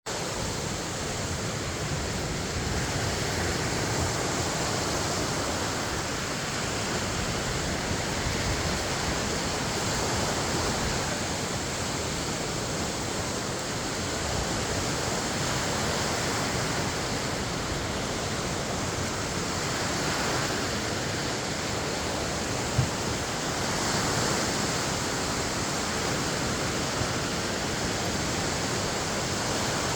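Lake Michigan waves washing against the shore: a steady rushing hiss that swells gently every few seconds. A single brief click sounds about three quarters of the way through.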